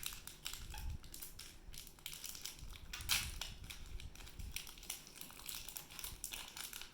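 Foil wrapper of a Pokémon booster pack crinkling and tearing as it is opened by hand, in irregular crackles with one louder crackle about three seconds in.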